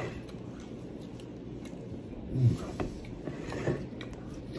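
A person chewing a mouthful of tuna sub on crusty French bread, with faint wet mouth clicks, and a short low hum from the throat about halfway through.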